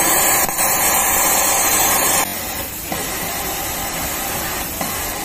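A loud, even hiss of compressed air from an industrial overlock sewing machine runs for about two seconds, then cuts off suddenly. A quieter steady hiss of factory machinery continues after it.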